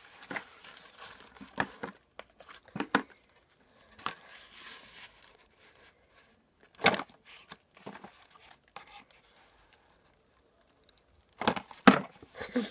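Yellow tissue paper crinkling and rustling in a small cardboard box as it is handled, in short irregular bursts with quiet gaps between, the loudest near the end.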